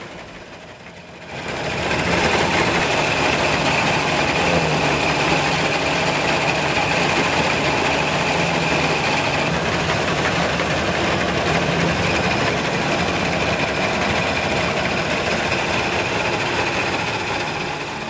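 Vintage combine harvester at work cutting and threshing wheat: the engine and threshing machinery run loud and even, with a steady high whine over a low hum. The sound swells up about a second and a half in.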